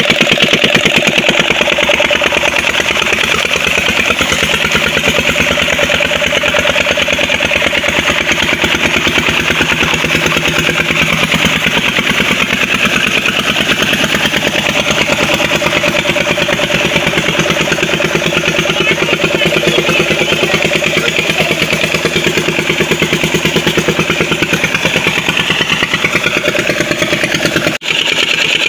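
Old 16 hp Petter diesel engine running steadily with a fast, even firing beat while it drives a tubewell water pump.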